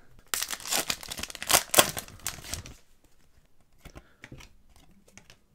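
A foil hockey-card pack wrapper torn open and crinkled for about two and a half seconds. It is followed by faint ticks of cards being slid and flicked through the hands.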